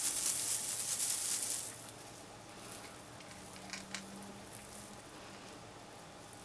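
A burst of high rustling for about the first second and a half, then quiet room noise with a few small clicks near the middle.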